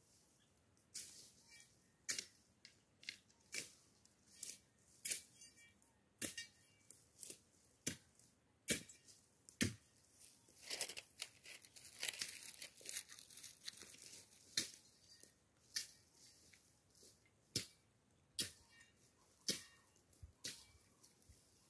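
Machete slashing through dry brush and weeds in sharp, irregular cuts, roughly one a second. Dry twigs and leaves crackle and rustle, most densely from about halfway through for a few seconds.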